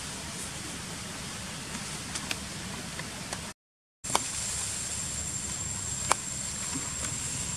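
Outdoor forest ambience: a steady hiss with a few sharp clicks. It cuts out briefly about halfway through, and after the break a thin, steady high-pitched whine sits over the hiss.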